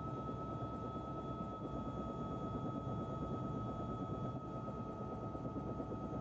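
Helicopter rotor and turbine engine noise: a steady low drone with a constant high whine over it.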